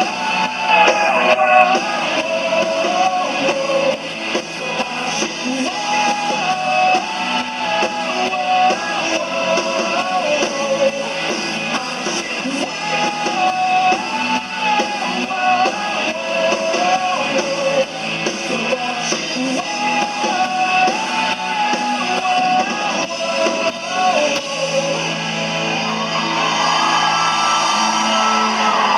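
Rock song with electric guitar and a wavering lead melody over the band; about 25 s in the band settles onto long held notes.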